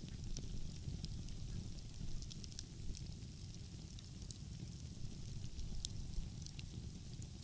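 Wood fire crackling, with irregular sharp pops and snaps, the loudest about six seconds in, over a steady low rumble.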